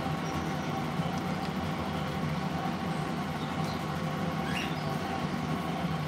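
Steady low room hum with a few faint, brief high chirps from pet parrots, one of them rising, about four and a half seconds in.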